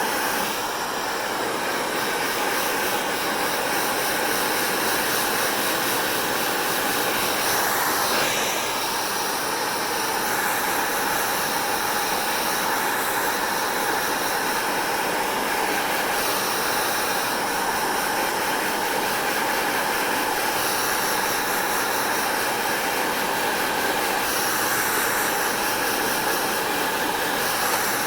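Hair dryer running steadily: a constant rush of blown air with a faint steady whine in it, the tone shifting slightly now and then.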